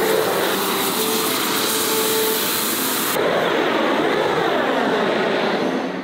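Handheld gas blowtorch running with a steady hiss as its flame heats the surface of a cast temple bell. About three seconds in the high hiss drops away, leaving a duller sound that wavers in pitch.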